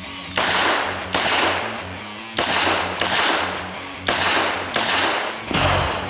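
Revolver shots fired at uneven intervals, about seven sharp cracks each trailing off briefly, over background music with a steady bass line.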